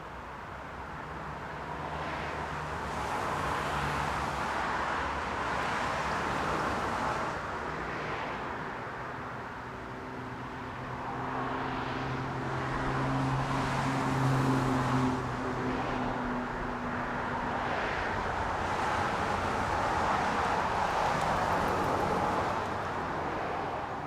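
Busy main-road traffic: cars passing one after another, tyre and engine noise swelling and fading every few seconds. One vehicle's engine hum stands out midway.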